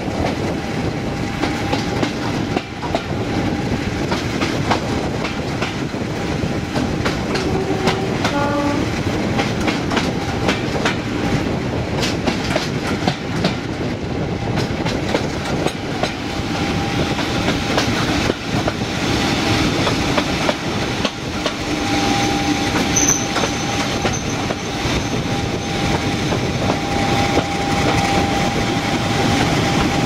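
Two Class 50 diesel locomotives, each with an English Electric 16CSVT engine, hauling a train, heard close alongside from the train: a steady engine drone with a thin steady whine, the sound that gives the class its "Hoover" nickname, over wheels clicking on the rail joints. A brief squeal about eight seconds in.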